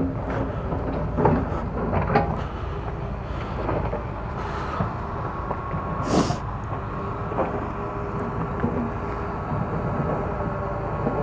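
Steady low rumble of construction machinery running on a building site, with a few knocks and one sharp metallic clank about six seconds in.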